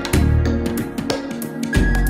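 Background music with a steady beat and low bass notes.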